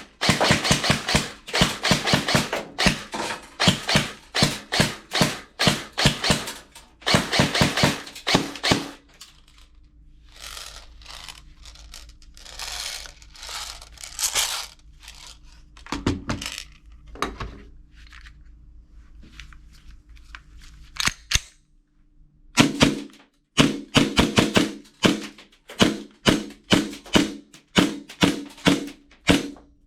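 Toy guns firing in rapid runs of sharp shots, several a second, with a quieter stretch of scattered clicks and a steady hum in the middle.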